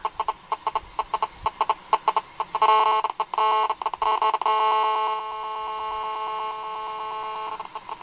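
Mobile phone radio interference picked up through a headphone jack and played back: a buzz of several tones in short pulses, about four a second, then longer bursts, then a steady buzz from about halfway through, like Morse code. The owner takes it for the phone's signalling bursts as it handshakes with the tower.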